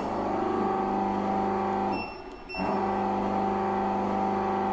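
Hydrafacial machine's suction pump running with a steady hum. It cuts out about two seconds in, a short beep sounds in the gap, and it starts again half a second later.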